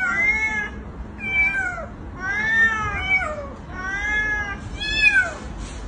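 A cat meowing repeatedly, about six calls in a row, each rising and then falling in pitch.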